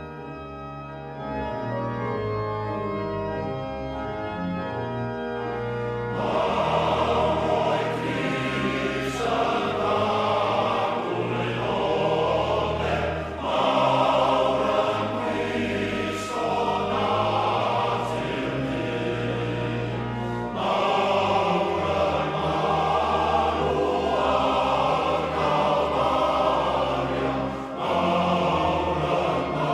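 A Welsh folk recording played over the air: it opens with held, organ-like chords, and about six seconds in a fuller arrangement with singing voices comes in and carries on.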